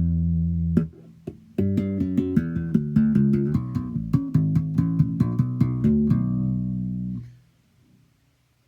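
Sadowsky Modern 5 ME five-string electric bass being played: a held note, a short pause with a few muted clicks, then a quick run of plucked notes ending on a held note that is damped about seven seconds in.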